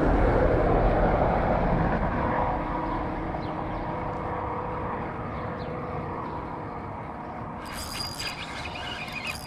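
Traffic noise from a passing vehicle: a loud, steady rumble that fades away over the first few seconds, then stays in the background. Rustling and scratchy handling sounds start near the end.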